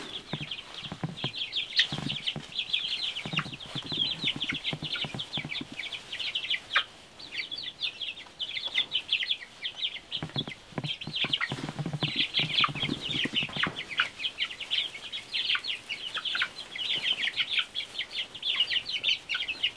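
A flock of young layer chickens peeping in many rapid, high-pitched chirps, with a few lower calls a few seconds in and again around the middle.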